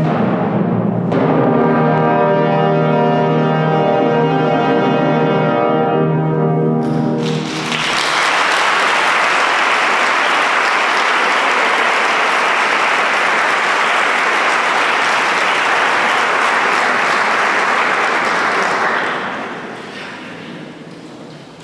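Choir and concert band hold a final chord with timpani for about seven seconds, then cut off together; audience applause follows and dies away near the end.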